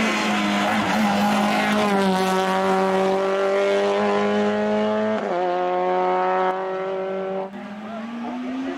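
Hillclimb race car engine running hard at high revs. Its pitch steps at gear changes about two and five seconds in, it drops in loudness a couple of seconds later, then revs rise again near the end.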